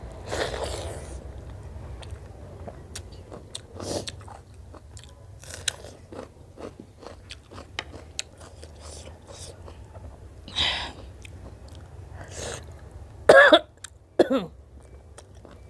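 Close-up eating sounds: chewing and biting with small wet mouth clicks and smacks, from someone eating chicken broth and gundruk. Near the end come two short, louder throat sounds.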